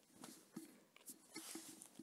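Near silence: faint room tone with a few short, faint noises.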